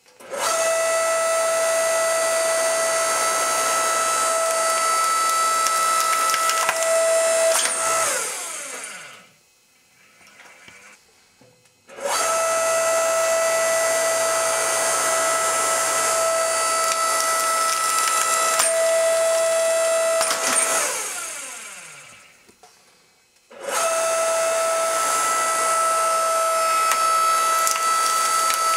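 Electric log splitter's motor running with a steady whine as the ram presses a shoe into the splitting wedge. It runs three times, stopping about eight seconds in and again about twenty-one seconds in, each time winding down with a falling pitch before starting up again.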